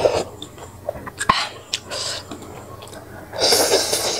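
Close-up eating sounds: soft sipping and mouth clicks at a spoon of porridge broth, then a long loud slurp a little past three seconds in as a strand of bitter herbs is sucked in.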